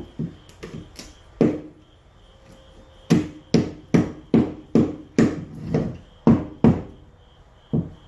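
Hammer striking wood: a few scattered blows, then a steady run of about nine strikes at about two and a half a second, and one last blow near the end.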